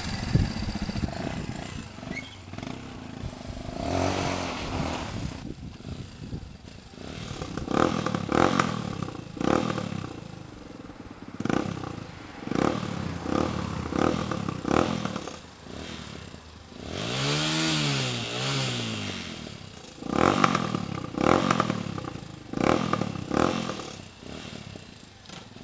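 Motorcycle engine running through a homemade bamboo exhaust, revved in repeated short throttle blips, each rising and falling in pitch, with a longer double rev near the end.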